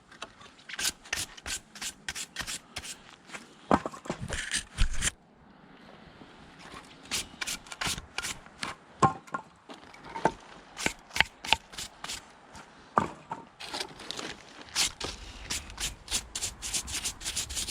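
Split hardwood firewood being handled: irregular sharp knocks and clicks of wood pieces with rubbing and scraping between them, pausing briefly about five seconds in and growing busier near the end.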